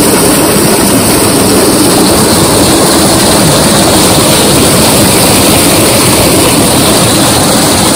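A thick jet of water from a tubewell pipe gushing and splashing into a concrete tank, making a loud, steady rushing noise.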